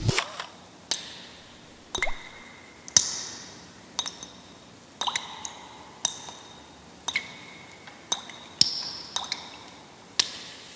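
Water drops falling one at a time, about one a second, each a sharp drip with a short ringing ping after it.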